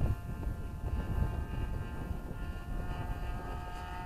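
Thunder Tiger .61 nitro glow engine of an RC model plane running in flight: a steady, high-pitched drone that grows louder near the end. Wind rumbles on the microphone underneath.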